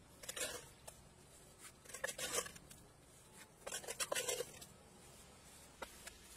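Mason's trowel scraping through wet cement mortar in a bowl, three short bouts about two seconds apart, followed by a few light clicks.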